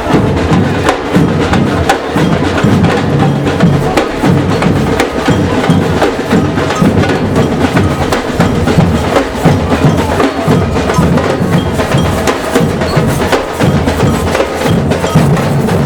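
Procession band drums and percussion playing a steady marching rhythm, with many sharp stick clicks over the beat.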